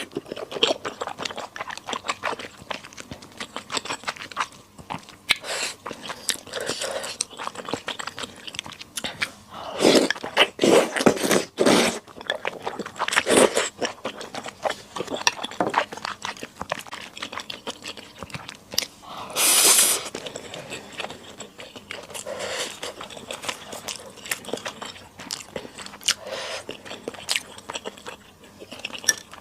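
Close-miked eating sounds of a person eating Sichuan skewer hotpot: chewing and crunchy bites in irregular bursts, with a louder, longer noisy sound a little before the twenty-second mark.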